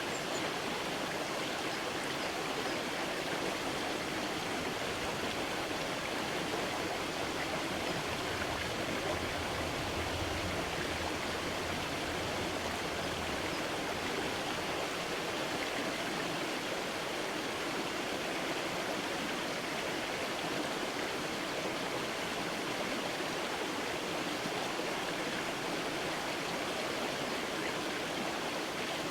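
A creek's water running in a steady, even rush.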